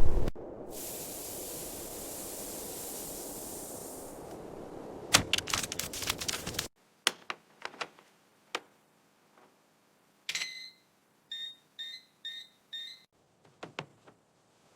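A steady hiss with a run of clicks, then scattered clicks and a high electronic beep followed by four short beeps about half a second apart.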